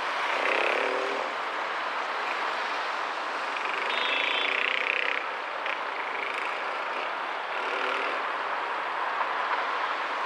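Street traffic at a city intersection: cars driving past one after another, their engine and tyre noise swelling as each goes by, heard from a car stopped at a red light.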